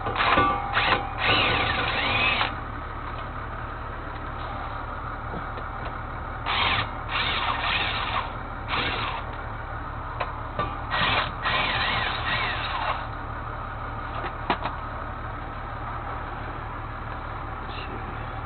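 A handheld power tool running in short bursts, in three spells a few seconds apart, with a steady low hum underneath.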